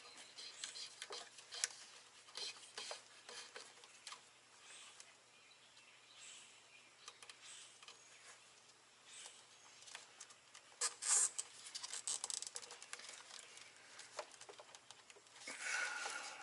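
Faint rustling and scattered small clicks of hands handling a wiring harness and its plastic connectors, with a louder flurry of clicks about eleven seconds in.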